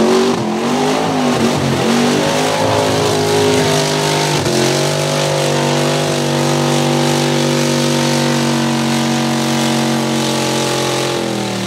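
Mud-racing Jeep engine at full throttle, revving up and down. About four and a half seconds in, it settles into a steady high-rev drone as the Jeep sits bogged down in the mud, then drops off right at the end.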